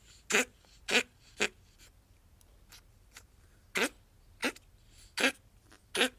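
Ferret coughing in short bursts: three coughs about half a second apart, then after a pause four more. The owner hopes it is a cold or shed hair caught in the bronchi, but thinks it looks a little like bronchitis.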